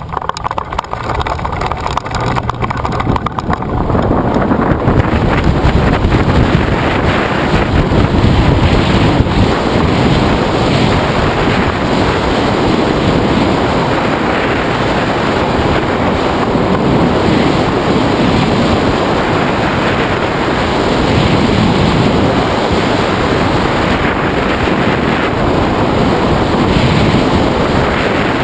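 Rushing wind on the microphone of a tandem hang glider taking off and climbing. It builds over the first four or five seconds as the glider gathers speed, then holds as a steady, loud rush of air.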